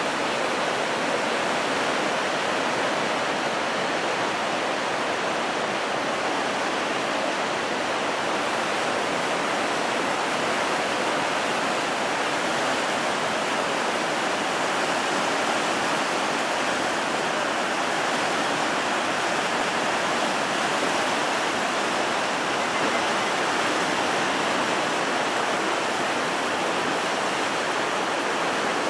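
Fast white-water rapids of the upper Yangtze River roaring steadily, with an even rushing sound that does not change.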